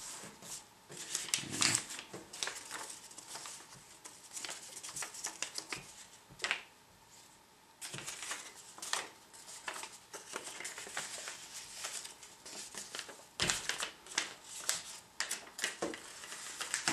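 A sheet of letter-size paper rustling and crinkling as hands fold and crease it into a paper airplane, in irregular crackles with a quieter spell a little before halfway.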